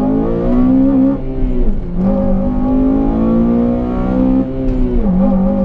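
Honda Civic Type R FN2's 2.0-litre K20 four-cylinder engine, heard from inside the cabin, accelerating through the gears. Its pitch climbs, drops at an upshift about one and a half seconds in, climbs again, and drops at a second upshift near the end.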